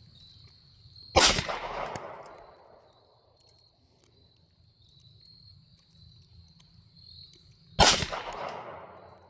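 Two shots from a Taurus TX22 Competition .22 LR pistol, about six and a half seconds apart, each followed by a long fading echo.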